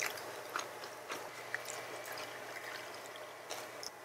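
Soju being poured from a glass bottle into a small shot glass, a light trickle with a few faint clicks of glass.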